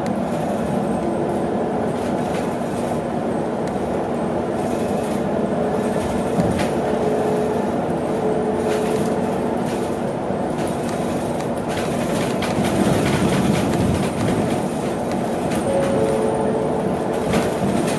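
Cabin noise inside a moving BYD large electric bus: a steady road and tyre rumble with a few small knocks and rattles. A faint whine from the electric drive comes and goes.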